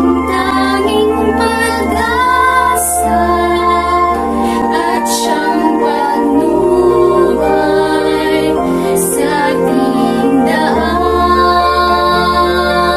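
Two girls singing a Tagalog Christian song together in sustained, held notes over backing music with a steady low bass.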